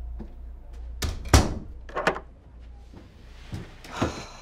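A door shutting: a few knocks and clunks, the loudest a thud about a second and a half in.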